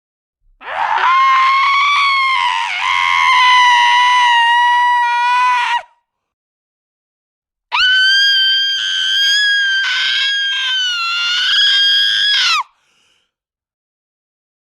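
Two long, high-pitched human screams of about five seconds each, held at a steady pitch, with a silent gap of about two seconds between them. The second scream is higher than the first.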